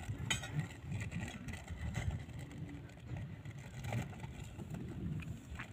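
Wind buffeting a phone's microphone, an uneven low rumble, with a few faint handling clicks.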